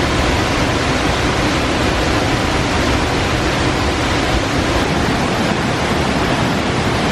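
Powerful waterfall crashing close by: a loud, steady roar of falling water and spray.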